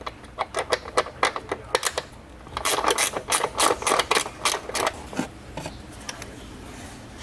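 Quick, irregular clicking and clattering of a hand tool and plastic air intake parts as the intake is unfastened and lifted out, densest in the middle and dying down to quieter handling near the end.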